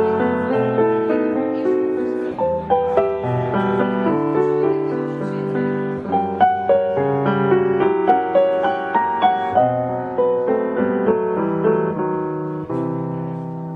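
Background piano music: a flowing line of struck notes over held chords.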